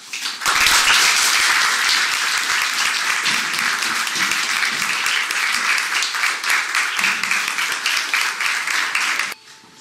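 A roomful of people applauding, many hands clapping densely together, cutting off suddenly near the end.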